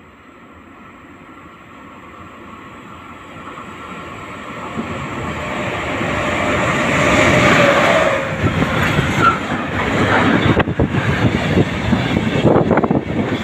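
Freight train passing through the station without stopping: its noise grows steadily louder over the first seven or eight seconds as the locomotive approaches, then the wagons go by close at hand with an uneven clattering of wheels on the rails.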